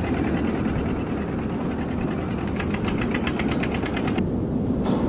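Small motor of a mini toy tractor running steadily, with a fast, even ticking rattle from about two and a half to four seconds in.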